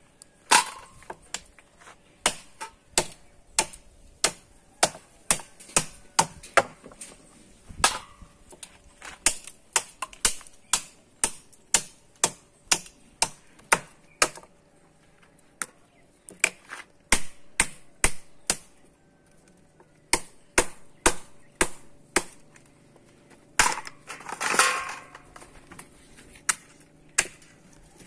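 Kitchen knife chopping king crab pieces on a wooden chopping block: a long run of sharp chops, about one to two a second, with a brief denser flurry near the end.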